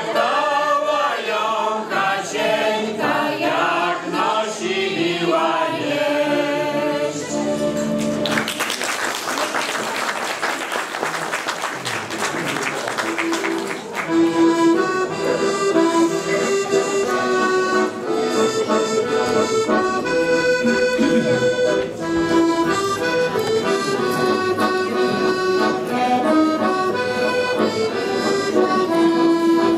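Mixed folk choir singing in unison with piano accordion, ending on a held chord about eight seconds in. A few seconds of applause follow, then the piano accordion plays alone, a melody over chords, until the voices come back in at the very end.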